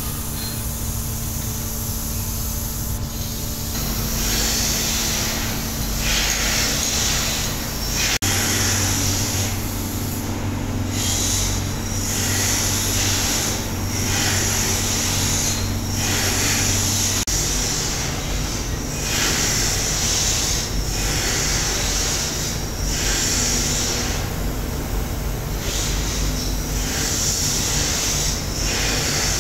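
Compressed-air spray gun spraying brake shoes in short hissing bursts, roughly one every one and a half to two seconds as the trigger is pulled and released, over a steady low machine hum.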